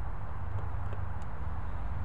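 Steady low outdoor rumble with a few faint clicks as a screw is worked out of the tail-light housing with a screwdriver.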